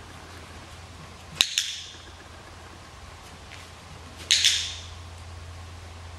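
A dog-training clicker clicked twice, about three seconds apart, each a sharp two-part click of press and release. Each click marks a correct pivot step by the dog.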